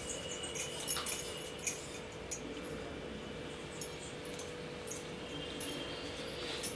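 Crisp fried cornflakes being tossed in a steel bowl: a light, dry rattle and crackle with scattered sharp ticks and a few louder clicks, the loudest about a second and a half in. A faint steady hum runs underneath.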